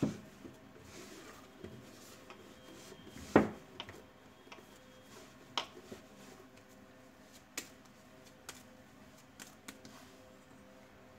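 Soft dough being kneaded and pressed into a ball by hand on a wooden work surface: quiet rubbing and pressing with a few knocks on the board, the loudest about three and a half seconds in.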